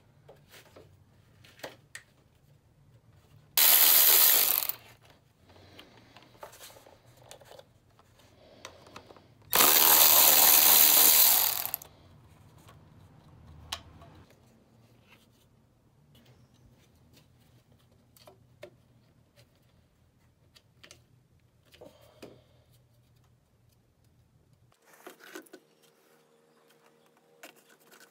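Power ratchet run in two bursts, the first about a second long and the second about two seconds, undoing fasteners on the engine's intake pipework. Light clinks and knocks of tools and parts come between the bursts.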